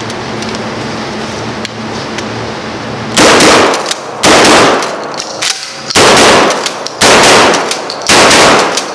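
Standard Manufacturing DP-12 double-barrel 12-gauge pump shotgun in rapid fire, starting about three seconds in. Five loud blasts come roughly one to one and a half seconds apart, each ringing out in a reverberant room. The gun fires twice per pump stroke. Before the shooting there is only a steady ventilation hum.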